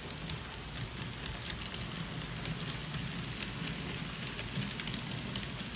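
N-scale model train running along the track: a steady low hum from the locomotive motors, with irregular clicks of the wheels over the rail joints.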